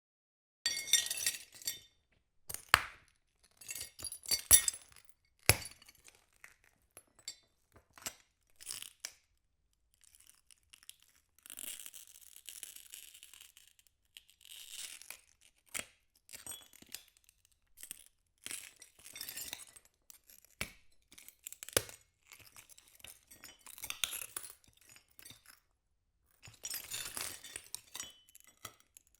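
Broken glass shards being crunched: a series of separate short crunches and clinks, with silent gaps between them and a longer, steadier grinding stretch about a third of the way in.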